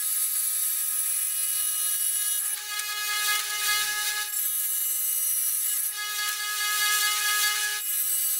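A small tabletop wet tile saw starts up and runs with a steady high whine while a backsplash tile is fed into the blade. A higher hiss over the whine comes and goes three times.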